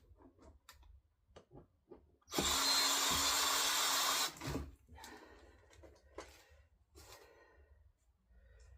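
Power drill/driver with a hex bit whirring for about two seconds, from a little over two seconds in, backing out a bolt; a previous run cuts off right at the start. Light clicks and clinks of bolts and parts being handled between and after the runs.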